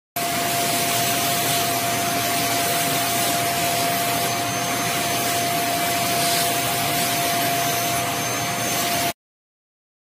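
Stick vacuum cleaner running steadily on a duvet, a constant airy hiss with a steady whine, while its suction pulls the duvet fabric up into the floor head. The motor cuts off suddenly about nine seconds in.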